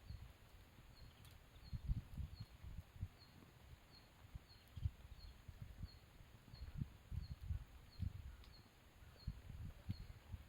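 Campfire burning with irregular low rumbling surges and a few faint crackles, while a high chirp repeats steadily about three times a second.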